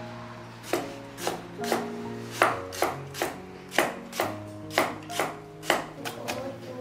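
Chinese cleaver chopping pickled radish on a round wooden chopping block: sharp knocks of the blade on the wood about twice a second, coming quicker near the end.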